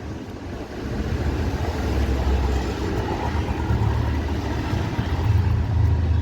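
Low, uneven rumble of a motor vehicle's engine, swelling a couple of times.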